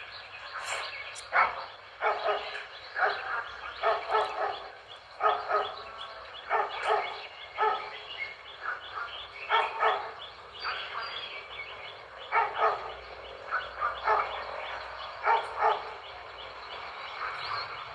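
A dog barking over and over, in short runs of several barks with brief gaps between them.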